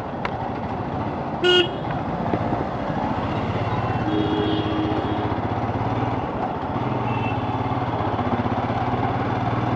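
Royal Enfield Scram 411's single-cylinder engine running steadily while riding through traffic. A vehicle horn gives one short toot about one and a half seconds in.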